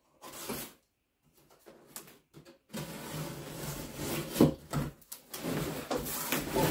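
A cardboard shipping box being opened: packing tape cut and pulled, then the flaps scraped and rustled open, with several sharper knocks of cardboard from about three seconds in.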